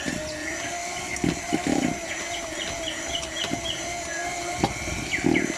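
Electric hand mixer running steadily, beating the cake batter, while birds chirp in quick series over it.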